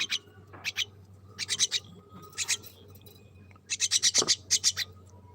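A hungry pet bird giving raspy begging calls while being fed: clusters of short, rapid high-pitched rasps, the loudest run about four seconds in.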